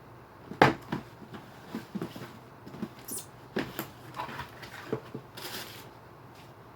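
A cardboard shoebox and new shoes being handled: a sharp knock about half a second in, then scattered light taps and clicks, with brief rustles of wrapping paper.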